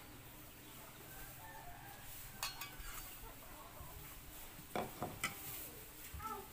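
A few sharp clicks and knocks of kitchenware: a metal spatula and a ceramic bowl against a frying pan and a wooden table, the loudest about five seconds in. Chickens cluck faintly in the background.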